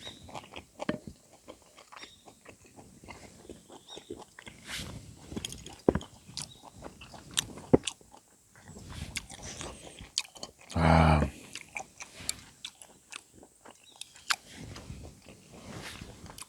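Close-up chewing of grilled pork jowl, with irregular wet mouth clicks and smacks throughout. A short low hum about eleven seconds in.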